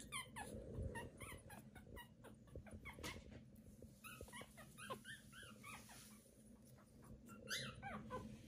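Young Pomeranian puppies whimpering and squeaking in short, high-pitched calls that drop in pitch, coming in quick runs of several a second.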